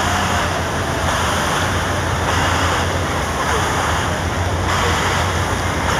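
Steady rushing spray of a water-show fountain's jets, with a low steady hum underneath.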